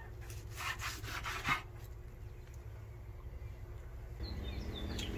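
Knife sawing through a rack of smoked pork spare ribs onto a wooden cutting board, a few rasping strokes through the dark crusty bark in the first second and a half. A steady low hum runs underneath.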